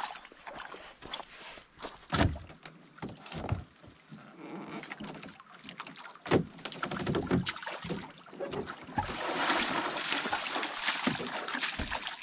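Splashing steps through shallow river water and hollow knocks as a canoe and gear are handled and the canoe is flipped up for carrying, with water sloshing and pouring around the hull. Four or five sharp knocks stand out, and the splashing grows busier near the end.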